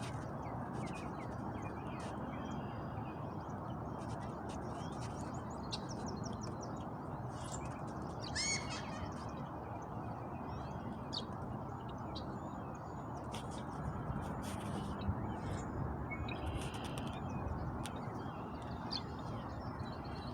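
Wild birds calling outdoors: many short chirps and calls scattered through, with one louder call about eight seconds in, over a steady low rushing background noise.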